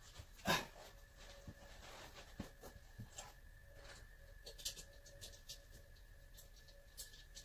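Faint scattered clicks and light taps of hand tools and small parts being handled under a car, with one louder knock about half a second in. A faint steady high hum runs underneath.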